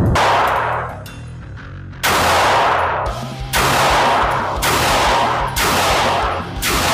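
9mm pistol shots: one at the start, then after a two-second pause five more about a second apart, each with a long echoing tail.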